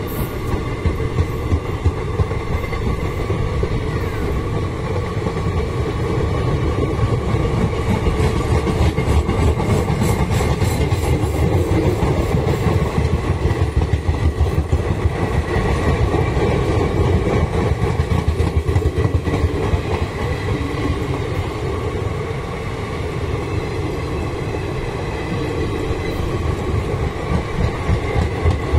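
Indian Railways passenger coaches rolling past close by at steady speed: a continuous rumble with wheels clattering rapidly over rail joints.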